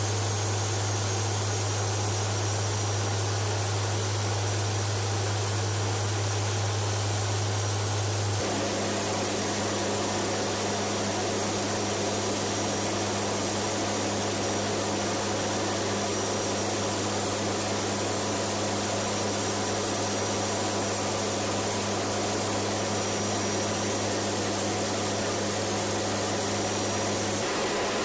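Steady cabin drone of a WC-130J Super Hercules in flight, its four turboprop engines making a deep hum under a broad hiss. About eight seconds in, the hum drops in level and a second, higher hum comes in.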